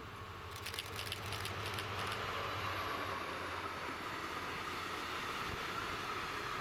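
Train passing on the line. Its rolling noise builds over the first two seconds, with a quick run of clicks about a second in, then holds steady with a faint whine.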